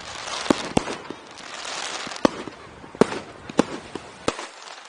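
Fireworks going off: about six sharp bangs spread over a few seconds, with a dense crackling hiss of bursting shells between about one and two and a half seconds in.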